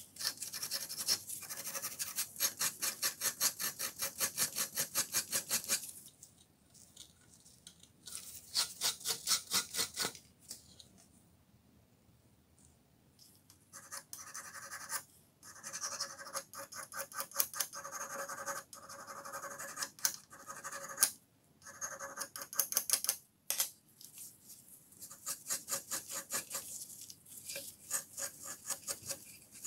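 Rapid back-and-forth scrubbing of a small knurled steel part of a rusty vernier caliper, held in pliers, by hand with an abrasive scouring pad. About five strokes a second, in bursts with pauses.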